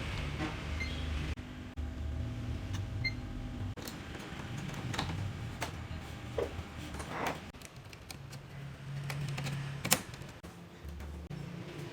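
Scattered light clicks and taps of tools and parts being handled on a workbench, over a low uneven hum, with one sharp click about ten seconds in.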